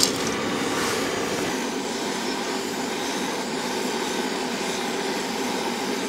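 Handheld gas torch burner running with a steady hiss, its flame held on wood pellets to light them.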